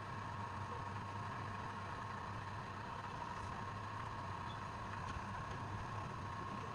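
Steady hum of a running machine motor, with a constant whine over a low drone.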